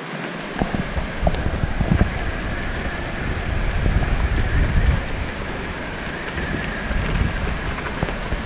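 Wheels of an electric longboard with all-terrain tyres rolling over a gravel track: a steady rumble with scattered small clicks of stones, mixed with wind on the microphone.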